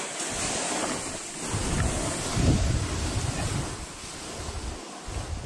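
Wind buffeting the action camera's microphone, with the hiss of skis sliding over snow on a downhill run. It is loudest about halfway through and falls off over the last second or two.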